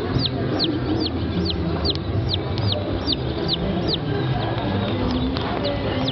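A rapid series of short, high chirps, each falling in pitch, repeating about two or three times a second over a steady low rumble of fairground noise.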